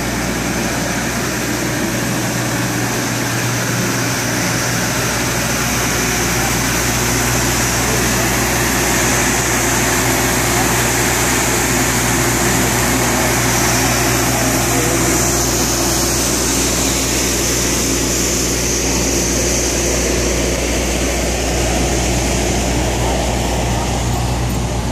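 Steady machine drone with a constant low hum, like a parked emergency vehicle's engine or onboard generator running.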